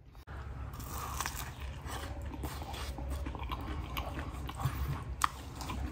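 A man chewing a mouthful of meat pie close to the microphone: irregular crunching and chewing of pastry and filling, with a couple of sharper clicks near the end.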